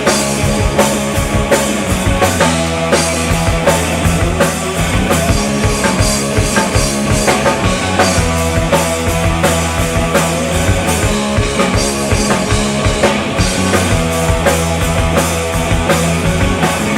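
Rock band playing an instrumental passage live, with full drum kit, bass and guitars and no vocals.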